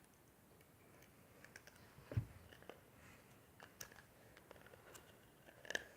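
Faint, scattered clicks and taps of small parts being handled, a cable being worked into a solder-wire box, with one soft thump about two seconds in and a few clicks near the end.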